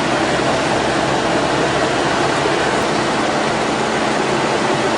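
Heavy construction machine's engine running steadily, a constant loud rumble and hiss with no changes.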